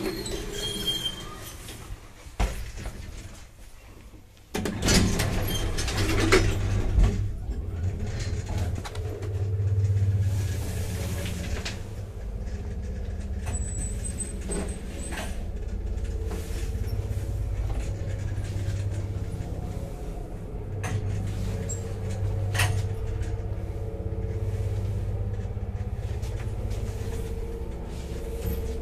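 1980s UKM passenger lift: a few sharp clicks at first, then about four and a half seconds in its very loud motor starts with a sudden low hum that runs on steadily, with occasional clicks and knocks.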